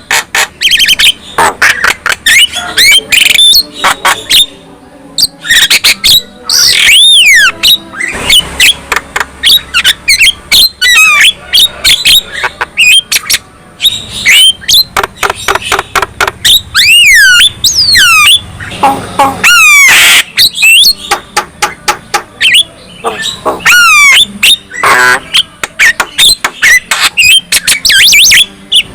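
Javan myna (jalak kebo) singing without pause: a rapid jumble of harsh squawks, sharp clicks and whistles that glide up and down.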